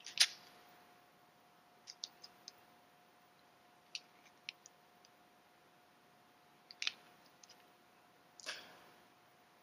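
Scattered small clicks and taps, the loudest just after the start, from hands handling a small underwater LED light with masking tape over its face and a wire attached, with a short scrape near the end. A faint steady hum runs underneath.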